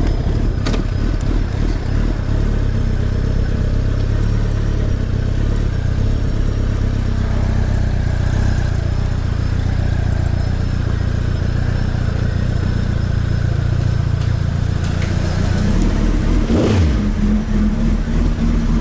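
Suzuki Hayabusa's inline-four engine running at low revs while the bike is ridden slowly up a ramp into an enclosed trailer, its revs rising briefly near the end.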